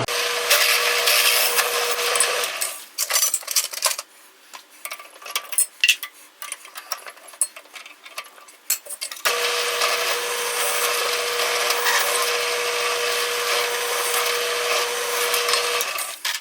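Electric power tool running and cutting wood, with a steady whine under a rough cutting noise. It stops after about two and a half seconds, gives way to scattered knocks and clatter of wood being handled, then runs again for about six seconds and stops near the end.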